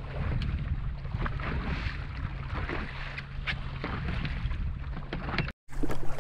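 Fishing boat's outboard motor running steadily at trolling speed, a low even hum under wind and water noise, with scattered knocks and clicks from rods and rod holders being handled.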